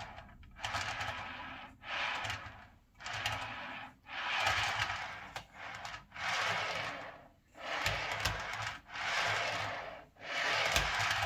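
HO scale covered hopper car rolling along model railway track, pushed back and forth by hand in about ten short runs of rolling wheel-on-rail noise, each roughly a second long with brief pauses between. It is a test of freshly laid track joints, which run smoothly.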